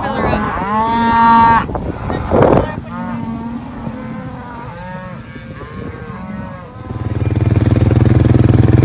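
Cattle mooing, several long calls one after another, the loudest in the first two seconds. About seven seconds in, a motor vehicle engine starts running close by with a steady low drone that becomes the loudest sound.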